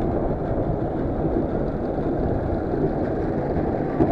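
Amusement ride running, heard from aboard: a steady low rumble of the ride's cars and wind noise, with no separate knocks or rhythm.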